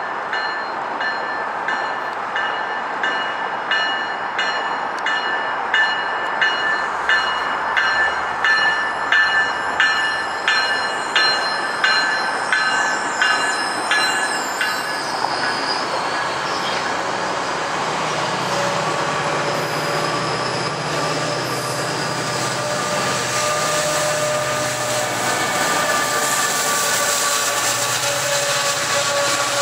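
GO Transit bi-level passenger coaches passing close by: wheels clacking over rail joints about twice a second, with a steady high-pitched wheel squeal. About halfway through the clacking fades into a steadier rumble with a low hum as the diesel locomotive pushing at the rear draws near.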